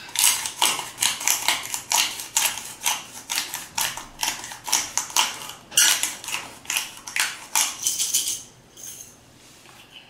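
Hand-twisted black pepper grinder grinding peppercorns: a run of gritty, ratcheting grinding strokes about three a second as the top is turned back and forth, stopping a couple of seconds before the end.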